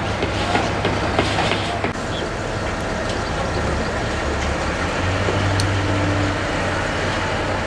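Heavy construction machinery running steadily, a low engine hum under a constant mechanical noise, with a few sharp knocks in the first two seconds.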